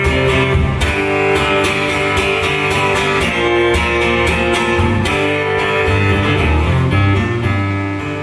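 Amplified acoustic guitar strummed hard in sustained chords, with repeated sharp strokes and a few heavier accents, one about five seconds in.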